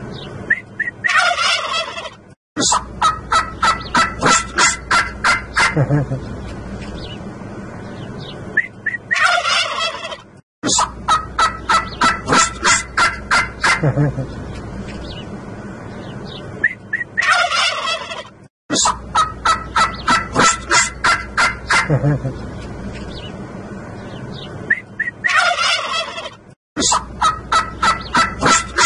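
A flock of domestic turkey toms gobbling while strutting in display. Each round is a dense burst of gobbling followed by a rapid rattling run of about five pulses a second. The same round repeats about every eight seconds, four times, each broken by a brief dropout in the sound.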